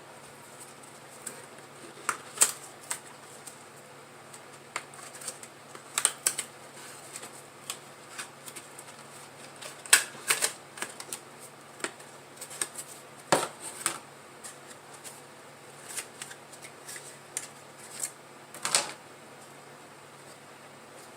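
Irregular sharp clicks and taps at uneven gaps, with a handful of louder clacks: small hard plastic and metal laptop parts being handled and set down.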